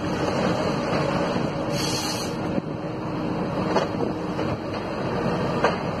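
Komatsu PC200F tracked harvester with a 370E harvester head working: its diesel engine and hydraulics run steadily, with a short hiss about two seconds in and a few sharp knocks after that.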